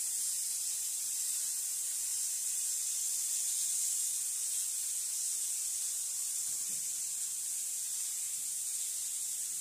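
Food sizzling in a hot frying pan on the stove: a steady, even, high hiss.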